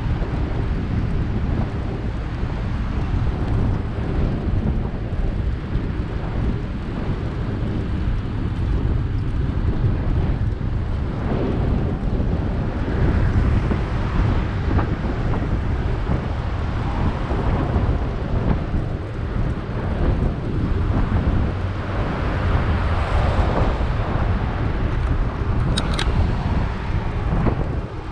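Wind buffeting the microphone of a moving bicycle, a steady low rumble, with one sharp click near the end.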